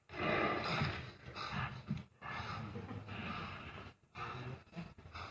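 Film sound effects of heavy breathing and snorts, coming in short irregular bursts with brief gaps.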